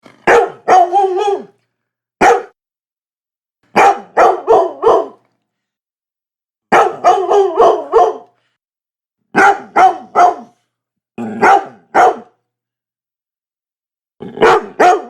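A Labrador barking in short volleys of two to five loud barks, with pauses of a second or more between the volleys.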